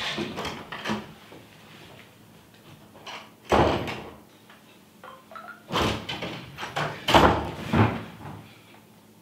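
A run of loud thumps and rustling as a person climbs onto a bed and settles on it, with a cluster of heavier knocks near the end.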